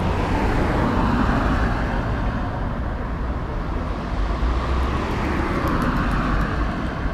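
Motor vehicle engine running with a steady low hum, and road noise that swells about a second in and again near the end, as of traffic passing.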